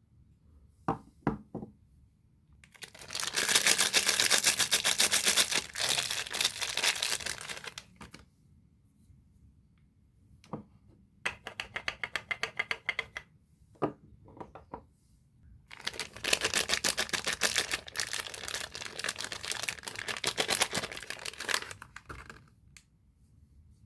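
Soap bar wrappers being torn open and crinkled by hand in three long spells, with a few short clicks and taps between them.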